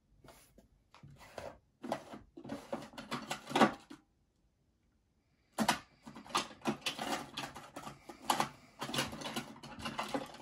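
Small tools and knife parts clicking, tapping and rattling as they are handled on a work surface. There is a brief cut to silence about four seconds in.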